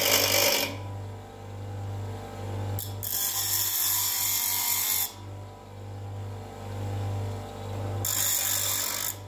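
Parkside PDOS 200 C2 double bench grinder's 200 W induction motor running with a steady hum that swells and fades about once a second. A steel screwdriver is pressed against the spinning grinding wheel three times, at the start, from about three to five seconds in, and near the end, each contact a harsh hissing rasp.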